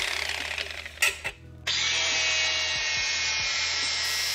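Handheld power tool running on a small electric motor's steel casing. It runs, stops about a second in, then starts again a little later and runs steadily with a high whine.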